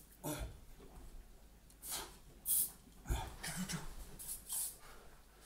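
An aerosol disinfectant spray can giving a few short hissing sprays, the loudest about halfway through, with a dull thump just after it.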